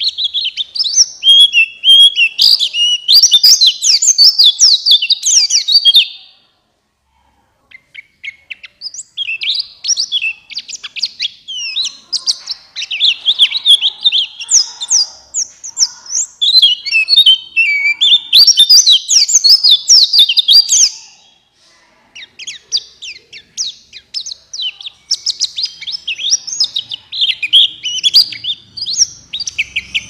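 Male white-eye (pleci buxtoni) singing a fast, high-pitched twittering song in long runs. It breaks off about six seconds in and again near two-thirds of the way through, then resumes.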